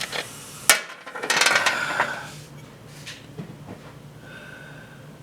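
A sharp click, then about a second of metallic clattering and rattling with a brief ring, and a lighter click later: parts of an opened washing machine being handled and moved.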